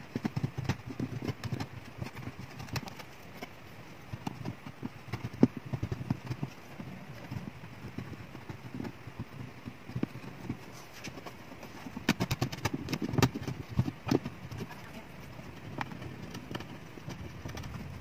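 Hands and a small tool working on a classical guitar's top around the bridge: irregular light clicks, taps and rubbing, with one sharper knock about five and a half seconds in and a busier stretch of taps near two-thirds of the way through.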